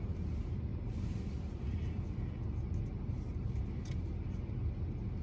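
Steady low rumble of a running car, heard from inside the cabin, with a few faint light clicks.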